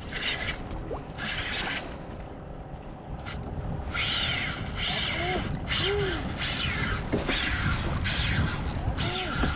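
Fishing reel's drag ratcheting in repeated short bursts, roughly once a second after a couple of earlier ones, as a hooked fish yanks the rod and pulls line off the reel.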